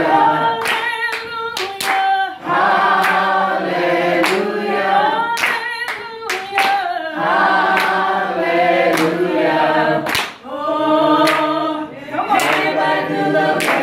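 A women's gospel praise team singing a cappella in harmony, with sharp hand claps keeping the beat about once a second and brief breaks between phrases.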